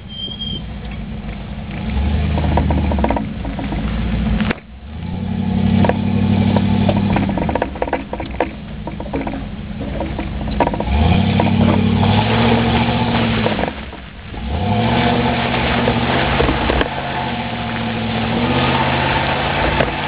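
1995 Ford F-150 pickup's engine revving in about five bursts, each rising and then falling back, as the two-wheel-drive truck churns through loose sand and mud. Near the end the spinning tire sprays dirt.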